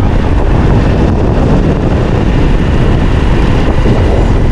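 Loud, steady rumbling noise of a vehicle driving along a road.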